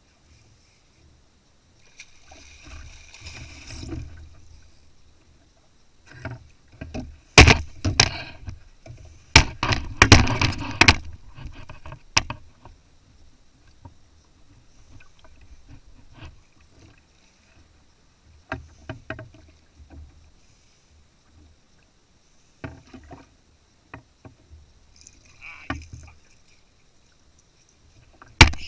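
Knocks and clatters of fishing gear against a kayak while a muskie is reeled in. The knocks come in clusters, loudest about 7 and 10 seconds in, with quieter stretches and scattered single knocks between.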